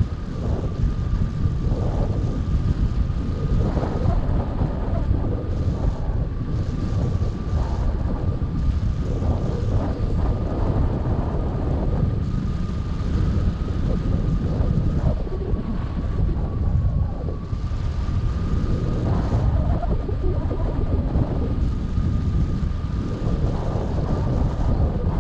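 Airflow buffeting a wing-mounted camera's microphone on a hang glider in flight: a steady heavy low rumble with irregular gusty surges. A faint steady high tone runs through it.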